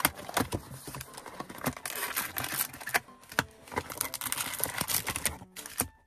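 Plastic wrapping on trading card packaging being torn open and crinkled, in two longer rustling stretches with handling clicks between them.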